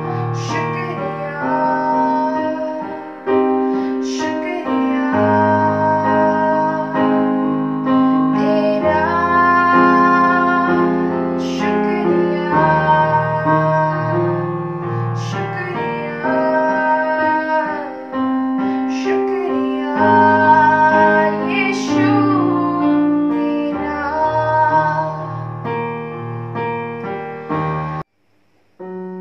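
A girl singing while accompanying herself with chords on an electronic keyboard. The sound cuts out for a moment near the end, then the music comes back.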